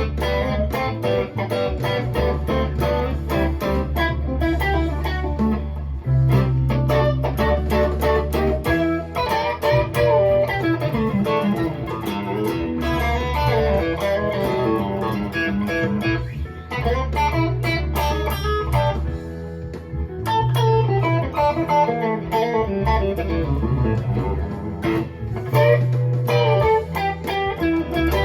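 Electric guitar playing a mix of chords and single-note melody lines over a deep bass line that shifts every second or two.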